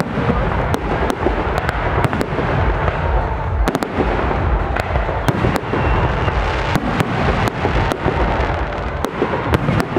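Fireworks display of large-calibre aerial shells bursting in quick succession: many sharp bangs, about three a second, over a continuous low rumble of booms.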